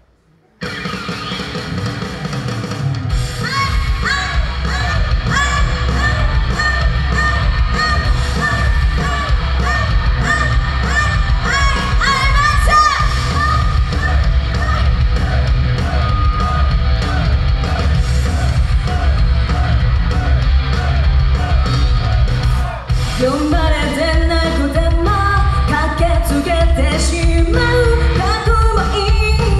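Live pop-rock concert music amplified through a PA: a loud track with a heavy steady beat starts suddenly about half a second in. A female singer comes in on the microphone a little after twenty seconds.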